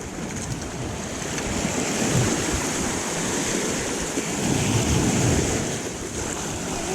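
Ocean surf washing on the shore, with wind buffeting the microphone. The wash swells about two seconds in and again around five seconds.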